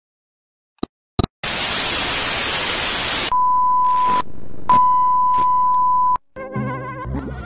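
Analog TV transition sound: two short clicks, then loud television static hiss for about two seconds. A steady high test-tone beep follows, broken once by a short crackle of static, and cuts off abruptly about six seconds in. A brief garbled snatch of TV audio comes near the end.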